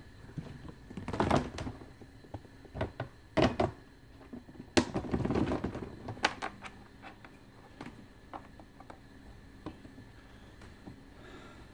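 Plastic pet carrier being handled: several knocks and sharp clicks with rustling of fabric, mostly in the first six seconds, then only a few faint ticks.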